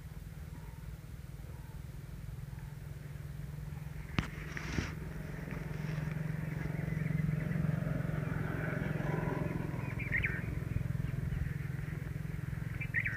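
A low steady rumble that swells through the middle and eases off again. About four seconds in, a paper sheet is turned with a rustle and a couple of sharp clicks. A brief bird chirp comes near the end.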